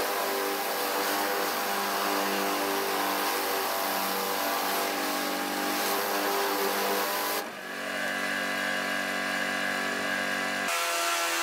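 Pressure washer running with a rotary surface cleaner spraying water across a corrugated metal roof: a loud steady hiss of spray over a machine hum. The note of the machine changes about seven seconds in and again near the end.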